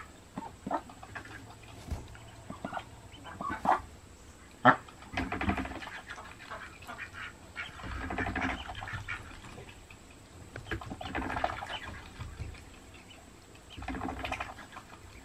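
A broody Golden 300 duck hen and her newly hatched ducklings calling: scattered short, sharp calls through the first five seconds, then three longer, rougher calls about three seconds apart.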